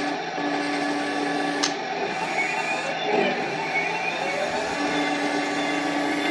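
Heng Long Tiger 1 RC tank running in a function test: small electric gear motors whirring steadily, with a steady hum that cuts out about two seconds in and comes back near five seconds, and a sharp click just before it cuts out.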